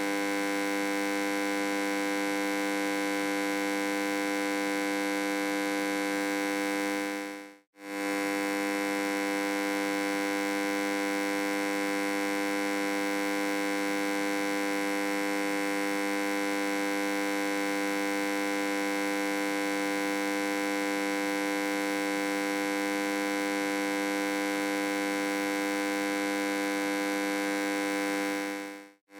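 Steady electric hum, a dense buzzing drone of many tones. It fades out and straight back in about seven and a half seconds in, then fades out again near the end.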